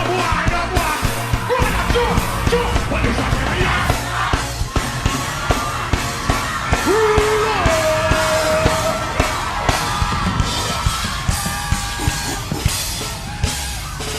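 Dancehall music from a live stage performance: a heavy, pulsing bass riddim and drums, with a deejay shouting and singing over it, holding a couple of long notes around the middle.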